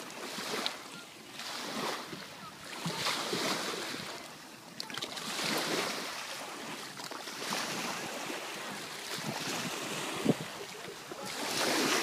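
Small waves washing onto a sandy beach, the wash rising and falling every second or two.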